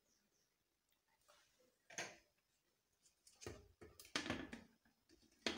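Light knocks and clicks of kitchenware being handled on a countertop: a single click about two seconds in, then a quick run of knocks near the end.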